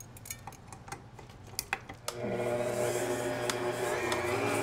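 A few light clicks, then about two seconds in a Drew Barrymore stand mixer's motor starts and runs with a steady hum, beating butter and sugar together in its steel bowl.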